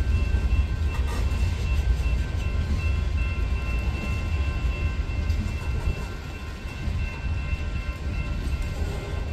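Freight train of covered hopper cars rolling past: a continuous low rumble with wheel-on-rail noise, and a faint steady high-pitched whine held throughout.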